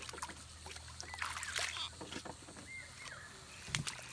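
Water splashing and sloshing in irregular bursts as a hooked eel thrashes at the surface beside a wooden boat, loudest about a second and a half in and again near the end.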